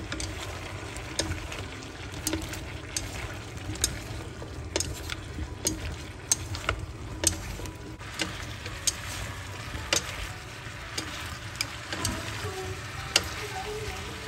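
Food stir-frying and sizzling in a pan, with a spatula tapping and scraping against the pan at irregular intervals over a low steady rumble.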